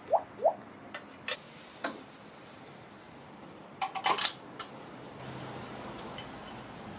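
Two quick rising vocal "whoo" sounds at the start, then scattered sharp clicks and knocks of carving knives and tools being picked up and handled at a wooden bench, with a cluster of clicks about four seconds in.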